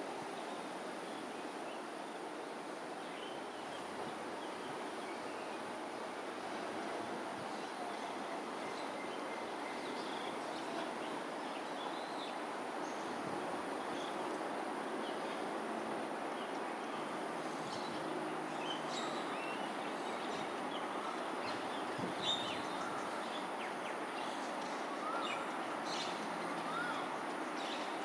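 Steady outdoor din of a distant urban hum that swells slowly, with scattered short bird chirps over it.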